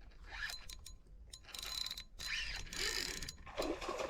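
Fishing reel being cranked: its gears whirring and clicking in short spurts.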